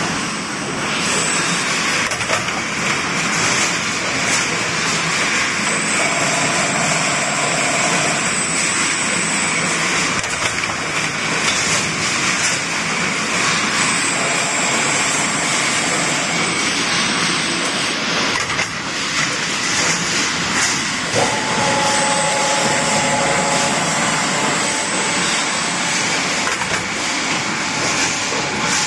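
Continuous spring assembly machine running: a steady, loud mechanical noise full of rapid small clicks as it forms and laces the wire springs. Faint whines come and go over it, with a lower pair starting about three quarters of the way through.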